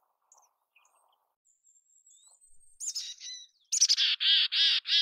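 Mountain chickadee giving its chick-a-dee call: a softer call about three seconds in, then a few thin high notes followed by three loud, harsh dee notes in quick succession near the end. Faint high chirps come before it.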